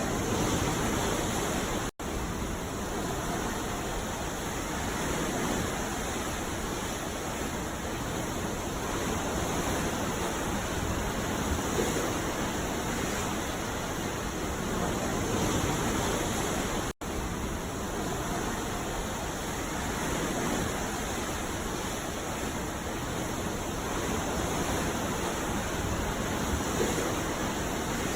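Sea surf rushing steadily, swelling gently every few seconds, with two brief dropouts where the sound cuts out for an instant, one about two seconds in and one about seventeen seconds in.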